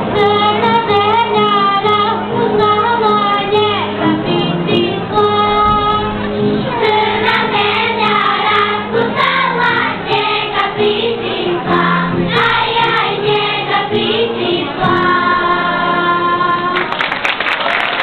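A children's choir singing a song together in a hall. The song ends about a second before the end and applause breaks out.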